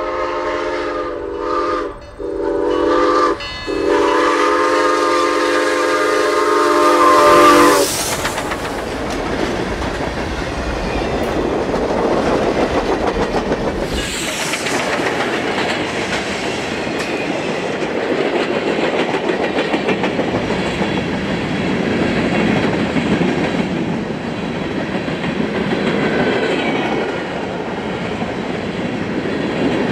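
Steam whistle of QJ-class 2-10-2 steam locomotive 6988 blowing a long blast, a short one and a final long blast that cuts off about eight seconds in as the engine rushes past. After that a long train of covered hopper cars rolls by steadily, wheels clacking over the rail joints.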